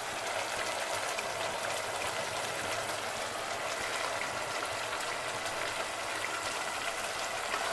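Chicken curry gravy bubbling and sizzling in its oil and ghee in a pot on a gas stove, a steady hiss with faint scattered crackles. The oil has separated out of the gravy, the sign that the masala is cooked through.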